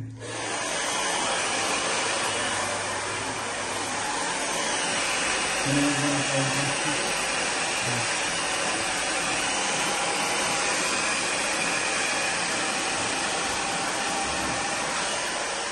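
Handheld hair dryer switched on and blowing steadily while hair is blow-dried.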